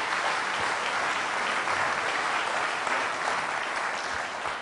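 An audience applauding steadily, welcoming a speaker to the stage.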